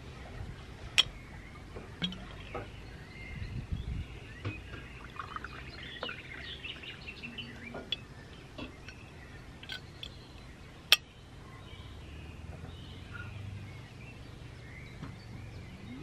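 Water poured from a swing-top glass bottle into a drinking glass, with two sharp glass clicks, one about a second in and one about eleven seconds in. Steady outdoor ambience runs underneath, with birds chirping.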